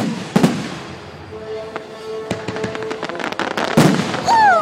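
Aerial fireworks bursting: sharp bangs at the start and about half a second in, a stretch of crackling, then a louder cluster of bangs near the end, followed by a short falling tone.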